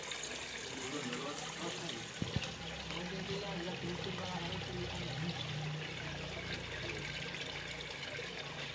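Water running and trickling steadily, with a couple of faint knocks about two seconds in.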